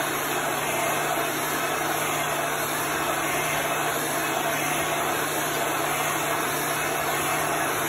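Handheld electric hot-air blower running steadily, a continuous rushing of air over a low motor hum, as it dries freshly applied chalk paste.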